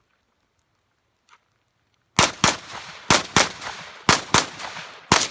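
Gunshots fired in quick double-taps, two shots about a quarter second apart and a pair roughly every second, starting about two seconds in, each shot trailing off in an echo.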